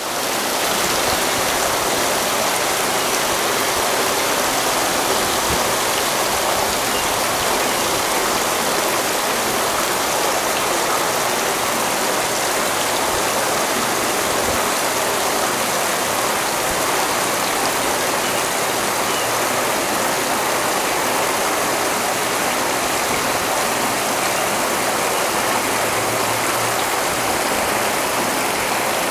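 Small, shallow creek babbling over stones, sticks and a log: a steady, even rush of running water.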